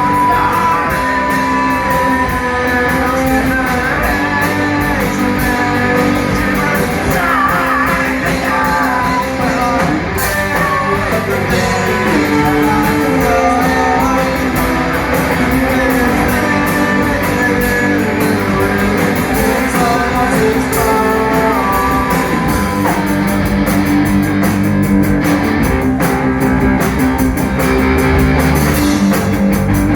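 Rock band playing live, with guitars and singing.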